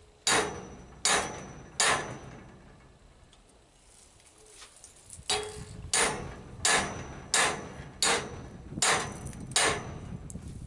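Hand hammer striking hot steel on an anvil in forging: three blows, a pause of a few seconds, then seven steady blows, some leaving a brief metallic ring.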